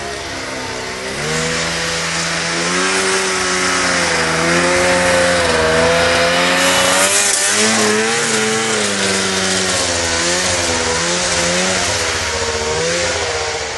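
Snowmobile engine running with revs rising and falling, growing louder to a peak a little past the middle, with a brief hiss then, and easing off toward the end.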